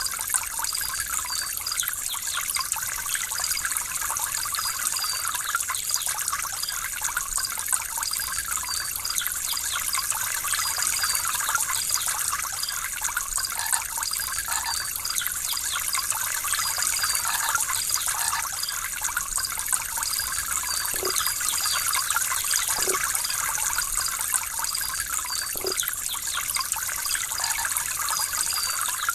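Running water flowing steadily, an even rushing with many small trickling splashes.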